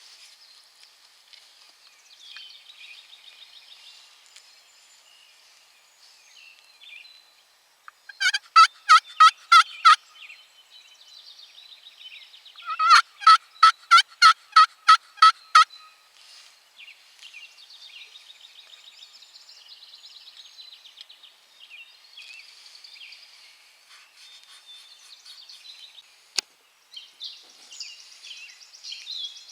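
Two series of loud turkey yelps, about six and then about nine evenly spaced notes, a few seconds apart. Faint songbird chatter runs underneath, with a single sharp click near the end.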